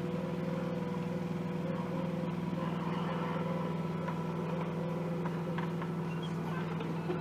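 Micro excavator's small diesel engine running steadily under load as the boom digs and swings the bucket, with a fainter higher whine that wavers a little.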